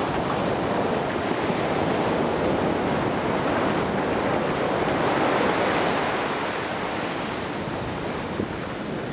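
Ocean surf washing up a sandy beach: a steady rush of small breaking waves and foam that swells slightly about halfway through.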